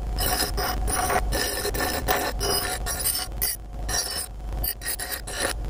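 Bench grinder wheel grinding the rusty steel head of an old hatchet, a continuous rough grinding with a few brief breaks between passes, over the low running hum of the grinder's motor.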